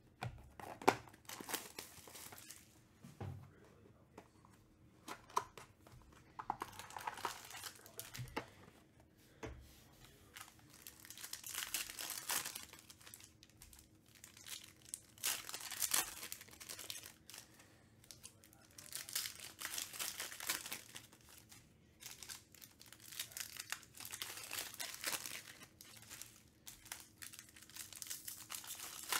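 Foil wrappers of 2017 Panini Stars and Stripes baseball card packs crinkling and tearing in repeated bouts as the packs are ripped open by hand. There is one sharp knock about a second in.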